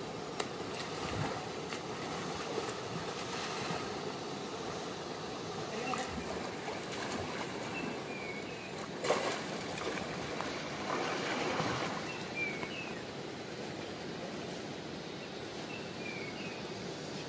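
Rushing river water with a swimmer splashing close by, loudest about nine seconds in and again around eleven to twelve seconds in.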